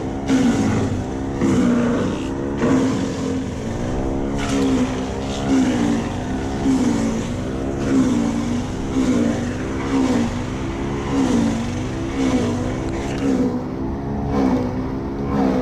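A small engine running fast, its pitch dipping and recovering in a steady rhythm about once a second.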